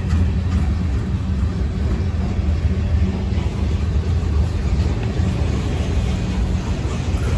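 Freight cars rolling past on the rails: a steady low rumble of steel wheels on track, with no breaks or distinct impacts.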